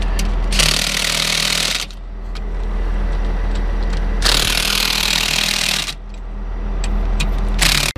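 Impact wrench running lug nuts onto a combine's front wheel in three bursts, a long one about half a second in, another about four seconds in and a short one near the end. It makes a loud ratcheting noise over a steady low hum.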